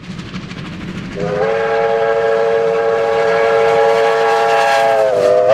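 Victorian Railways R class 4-6-4 steam locomotive R761 passing at speed with its exhaust beating rapidly. About a second in, its whistle sounds one long chord of several tones at once, dipping slightly in pitch near the end.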